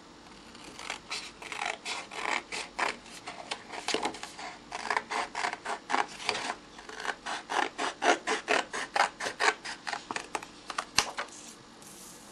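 Scissors cutting through a sheet of paper in a long run of short snips, about two to four a second, stopping about a second before the end.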